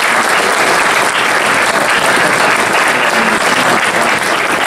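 Audience applauding: steady, dense clapping from a roomful of people.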